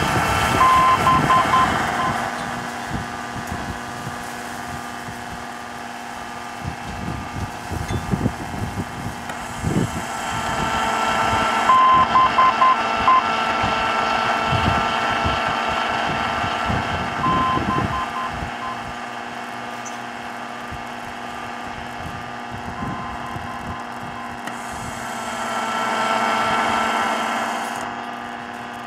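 Radio receiver audio from an Aqua Meter Aqua Guide 712 automatic direction finder. Hissy static swells and fades over a steady low hum, with short groups of high beeps on a single tone every five or six seconds.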